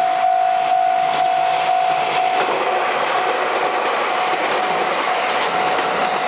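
Japanese level-crossing warning bell ringing in a steady pulse about twice a second while a train runs over the crossing. The rush and clatter of the wheels on the rails swells from about two and a half seconds in and partly covers the bell.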